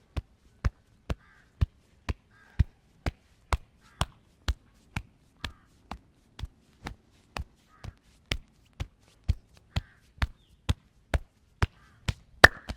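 Rapid percussive massage: a hand striking the body in a steady rhythm of sharp slaps, about two a second, with the loudest smack near the end.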